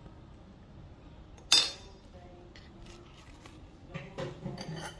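Kitchen handling on a ceramic plate: one sharp clink with a short ring about a second and a half in, then a few softer knocks near the end.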